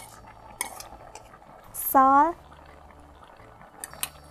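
Light clicks and knocks of a ladle and plastic bowls against a stainless steel cooking pot as leafy greens are tipped into the soup, a few near the start and a couple near the end. About two seconds in, a short, loud voice sound with a rising pitch.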